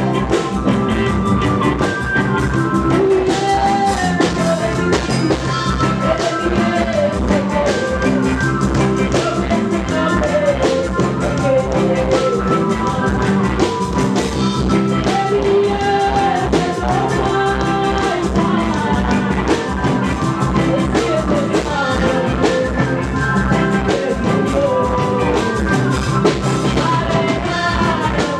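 Live reggae band playing a song: drum kit, bass and guitar under a sung melody line, loud and steady throughout.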